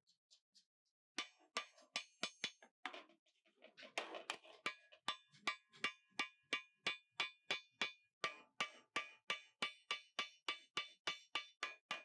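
Hammer blows on metal, most likely the steel shell of an old water heater being worked into a stove, each strike leaving a short metallic ring. A few faint taps give way about a second in to firm strikes, which settle into a steady rhythm of about three a second.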